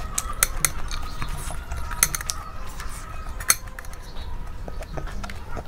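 Hand eating from stainless-steel dishes: fingers scraping and picking food, with a few sharp clicks of fingers and nails on the steel plate and bowl, the loudest about two and three and a half seconds in, over close-miked chewing.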